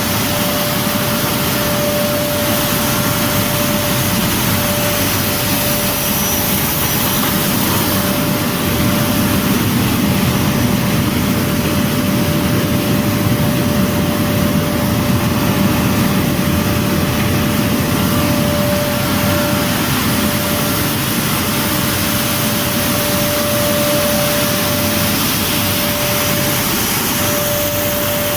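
Wheat flour milling machinery running: a steady, unbroken machine noise with a constant mid-pitched whine.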